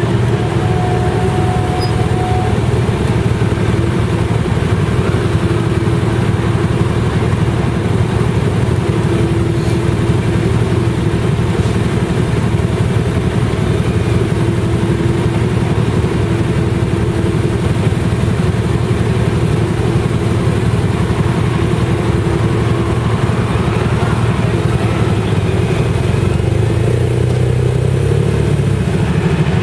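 Motorcycle engines running at low revs as a small group rolls slowly and waits in a queue, led by the close, steady note of a Honda CB1300's inline-four. The engine note picks up slightly near the end as the bikes move off.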